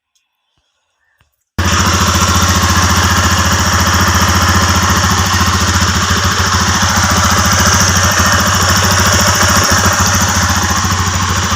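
Near silence for about a second and a half, then a TVS Apache RTR single-cylinder motorcycle engine comes in suddenly and runs steadily, its loose rocker arms now adjusted.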